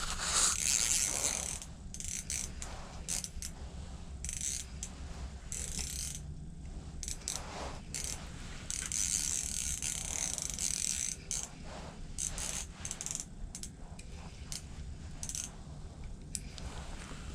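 Fishing reel being cranked as a hooked fish is brought up through the ice hole, its gears and pawl making an irregular clicking, ratcheting whir.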